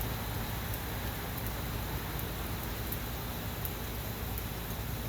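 Steady rain falling, with scattered faint ticks of drops.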